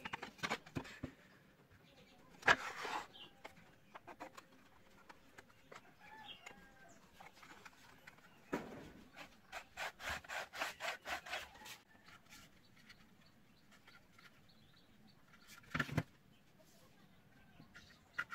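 Wooden parts of a hand-made slingshot's sliding barrel being handled and slid along the frame: light wood-on-wood clicks and knocks, a louder knock a few seconds in, then about two seconds of quick back-and-forth rubbing strokes, roughly five a second, and one more knock near the end.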